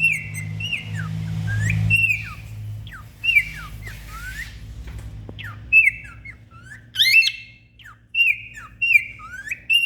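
Cockatiel whistling a long run of short chirpy notes, each a quick glide in pitch, repeated again and again.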